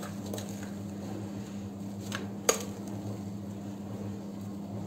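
A metal spoon scraping thick cake batter out of a glass bowl into a glass baking dish, with small taps and one sharp clink about halfway through, over a steady low hum.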